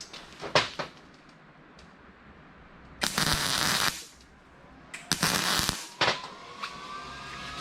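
MIG welding arc crackling in two short bursts, the first about a second long and the second a little shorter: short weld beads being laid on a nut on a black-pipe tee. A few short clicks come before the bursts, and a faint rising whine comes near the end.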